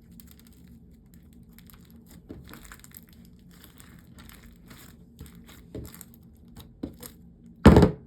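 Sticky slime with crunchy add-ins being squished and worked by hand, giving a run of small crackles and crunches. One much louder, short squish comes near the end.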